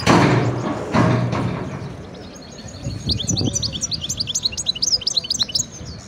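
Many caged songbirds chirping and twittering in quick, high notes, thickest in the second half. A loud rushing noise comes at the start and again about a second in, each fading away.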